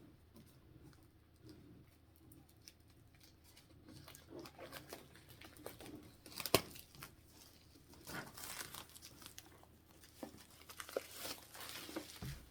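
Plastic wrapping being torn and crinkled off a cardboard Pokémon Elite Trainer Box, in irregular handfuls with small clicks and one sharper snap about halfway through.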